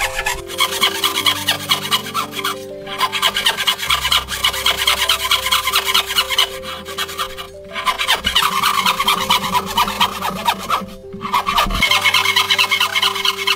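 A wooden frame saw cuts through a wooden block by hand, its blade rasping in quick back-and-forth strokes, with brief pauses about three times. Background music plays underneath.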